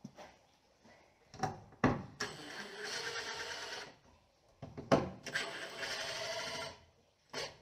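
Cordless power drill running in two bursts of about a second and a half each, working screws in a wooden 2x4 board, with a few sharp knocks of the tool and board before and between the bursts.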